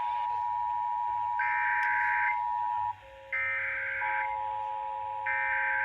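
Emergency Alert System tones: three harsh digital data bursts of the SAME header, about a second long and a second apart, over the steady two-tone attention signal. The attention tone drops out briefly about halfway through and comes back with a lower tone added.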